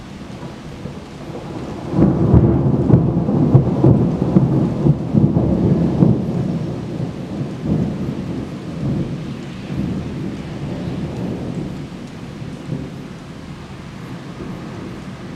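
A thunderclap breaks out suddenly about two seconds in and rumbles on for several seconds, slowly dying away, over steady rain.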